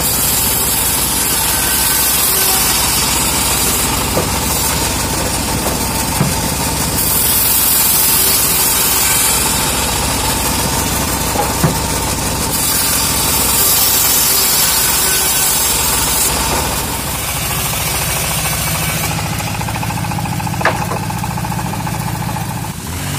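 Homemade bandsaw sawmill ripping teak planks. The machine runs steadily while the hissing of the blade cutting through the wood comes and goes in three passes, and near the end it runs on without that hiss.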